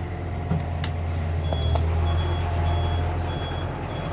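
A vehicle's reversing alarm beeping at one high pitch, evenly, a little under twice a second, starting about a second and a half in, over a steady low engine hum. A single sharp metal clink a little under a second in.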